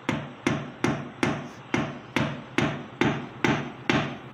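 Wooden-handled hammer driving a nail into a wall in a steady run of strikes, about two and a half a second.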